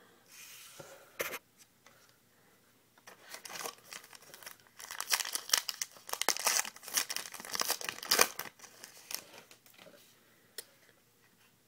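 Foil wrapper of a trading-card pack being torn open and crinkled, a dense crackling rustle through the middle of the stretch, with a single sharp click about a second in.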